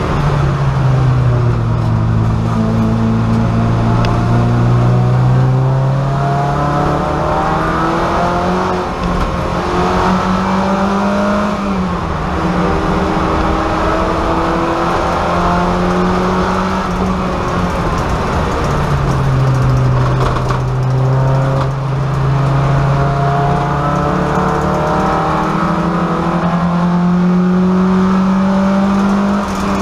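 VW Golf race car's engine heard from inside the stripped cabin, running hard around the track, its pitch climbing and dropping several times as the car accelerates, shifts and slows for corners.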